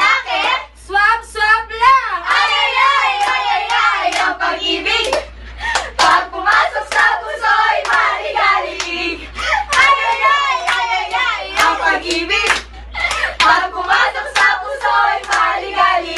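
Several young women singing together, with sharp hand claps scattered through the singing.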